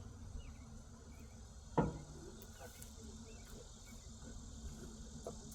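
Faint outdoor background with a steady high trill of insects. A single sharp knock about two seconds in stands out above it.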